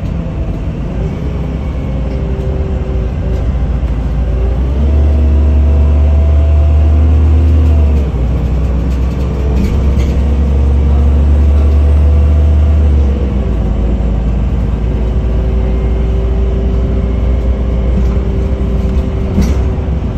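Inside a NefAZ-5299 city bus on the move: low engine drone with road noise. The drone grows louder about five seconds in, drops for a moment near eight seconds, and eases off about thirteen seconds in, with a faint whine rising and falling in pitch above it.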